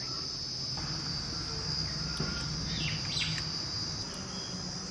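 Steady high-pitched chorus of insects, with a few faint scrapes and knocks of a metal spatula in a brass pot.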